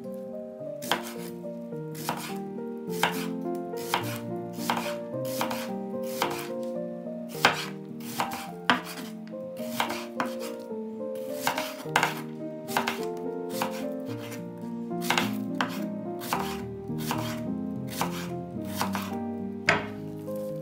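Chef's knife slicing an onion on a bamboo cutting board: a run of sharp knife strokes against the board, roughly two a second. Soft background music plays underneath.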